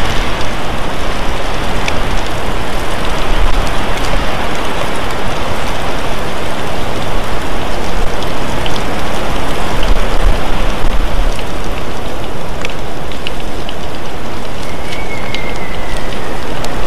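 Loud, steady noise on the outdoor nest camera's microphone, with irregular low rumbling bumps and a few faint ticks.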